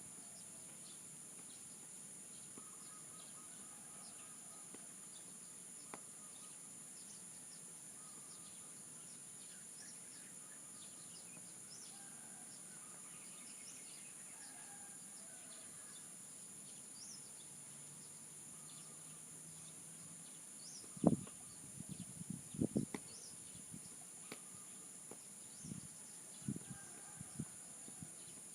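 Faint scattered bird chirps over a steady high-pitched insect drone. About three-quarters of the way through comes a cluster of soft low thumps.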